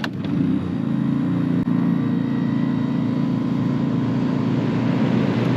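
Efurden portable gas inverter generator running steadily, with a single sharp click about a second and a half in.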